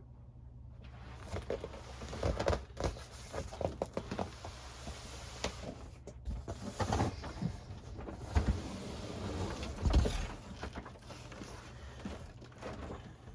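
Cardboard case of firework shells being handled: irregular rustling and scraping with scattered knocks, the loudest thump about ten seconds in.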